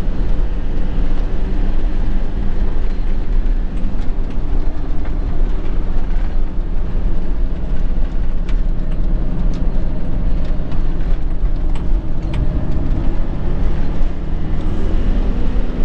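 Camping-car engine running and tyre noise on the road while driving, a steady low-pitched sound with a few faint clicks.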